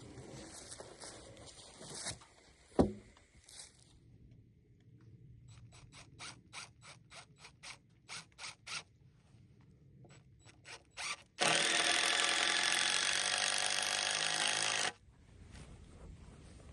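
Cordless drill driving a screw into the timber, running steadily for about three and a half seconds before cutting off. Before it come a sharp knock and a quick run of about a dozen clicks, roughly three a second.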